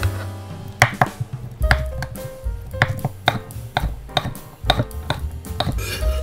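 Chef's knife dicing cooked chicken breast on a wooden cutting board: a string of sharp knife taps, a few a second, under light background music.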